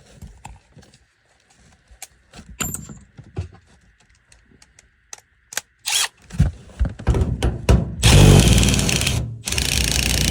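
Knocks and taps of tools being handled, then a power tool starts in short stutters about six seconds in and runs loudly from about eight seconds, stopping briefly just after nine seconds, as it cuts out the marked hole for a return-air collar.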